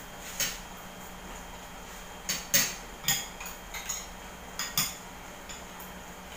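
Spoons and forks clinking and scraping against plates as people eat, in scattered short clicks that come thickest between about two and five seconds in.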